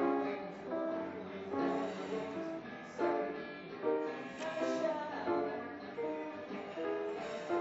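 Kawai grand piano being played: chords and melody notes, with a new chord struck every second or so.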